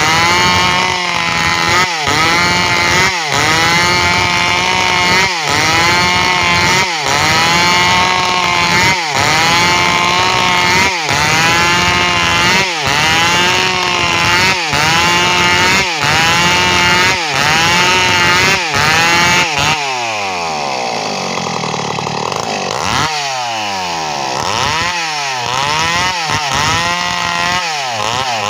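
Stihl MS 382 two-stroke chainsaw ripping lengthwise through a waru log, its engine speed sagging and recovering about once a second under the cut. About twenty seconds in the revs fall away toward idle, then it is revved up and down again.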